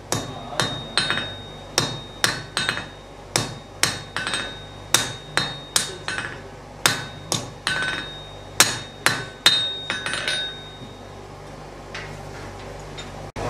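Hand hammer striking the red-hot tip of a stonemason's pointed steel chisel on an anvil, about two to three ringing blows a second. The blows stop a few seconds before the end.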